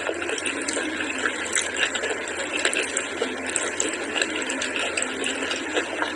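Close-miked eating sounds: chewing and wet squelching of rice and curry, with fingers mixing rice on the plate. A dense, steady run of small wet clicks and crackles.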